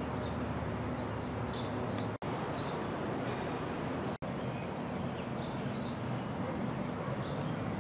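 Birds chirping in short repeated calls over a steady low background rumble; the sound cuts out for an instant twice, about two and four seconds in.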